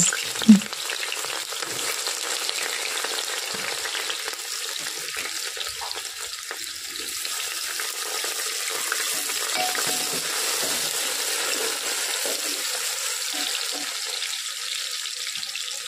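Sliced onions sizzling steadily as they fry in hot oil in an aluminium pressure cooker, stirred with a wooden spoon.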